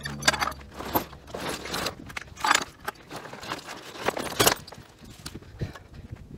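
Handling noise from a helicopter Bambi water bucket being unpacked and stood up: its fabric rustling and scraping while the metal spreader rods, cables and release head jangle and knock, in irregular bursts.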